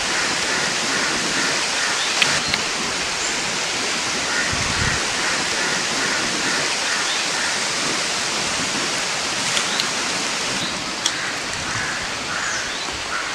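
Wind rushing through tree leaves, a steady loud hiss, with faint repeated chirping and a few light clicks.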